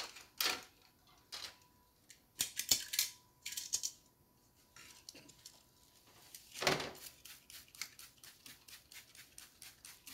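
Metal tongs clicking and scraping on a metal tray while handling a smoked rack of pork ribs, with short hissing sprays from a spray bottle. There is one louder sweeping sound about two-thirds in, followed by an even run of quick squirts or clicks, about three to four a second.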